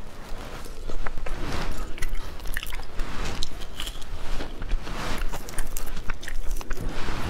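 Close-up crunchy biting and chewing of whole cooked shrimp that are still partly frozen, with many small sharp crackles; near the end, shells crackle as they are pulled apart by hand.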